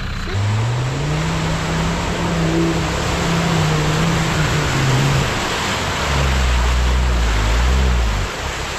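Land Rover Discovery engine revving hard as the 4x4 ploughs through a deep mud hole, with mud and water churning and spraying. The engine note climbs about half a second in and holds, then drops to a deeper, heavier labouring note about six seconds in.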